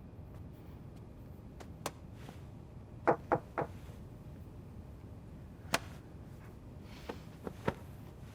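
A few short, light knocks and clicks over a faint steady hiss: a single click, then a quick run of three louder knocks, another click, and a few softer taps near the end.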